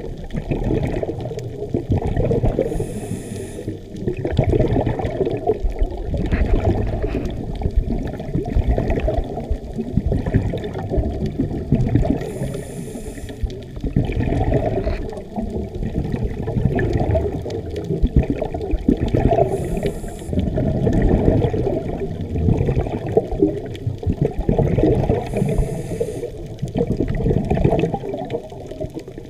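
A scuba diver breathing through a regulator, heard underwater: a continuous low bubbling rumble of exhaled air, with a brief hiss of inhalation four times, several seconds apart.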